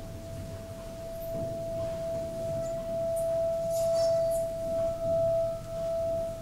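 Seven-metal Tibetan singing bowl ringing with one steady, sustained tone that grows louder and swells and fades about once a second, with a fainter higher tone joining about two and a half seconds in.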